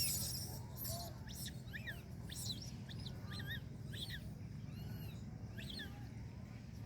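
A flock of small birds chirping over and over, many short calls overlapping, over a steady low rumble, with a brief rustle at the very start.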